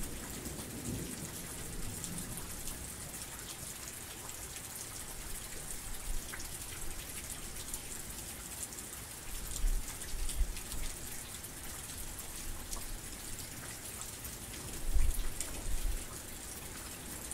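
Heavy rain falling steadily, a dense hiss of drops pattering on a surface. Two short spells of deep low rumble come through, about ten and fifteen seconds in.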